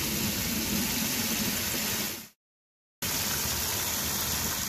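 Water spraying hard from an outdoor brass faucet into a collapsible PVC-coated fabric bucket already partly full, a loud steady rush and splash. It breaks off into total silence for under a second about two seconds in, then resumes.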